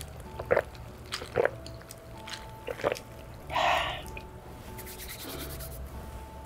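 A person gulping a drink from a paper cup: three swallows about a second apart, then a loud breathy exhale a little after three seconds in. Faint background music plays under it.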